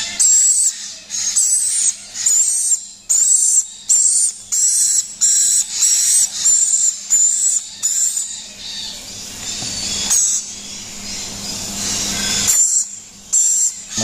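Parrot chick giving its shrill begging calls while being syringe-fed hand-rearing formula, repeated about twice a second. In the middle stretch the calls merge into a steadier, quieter sound, then the separate calls return near the end.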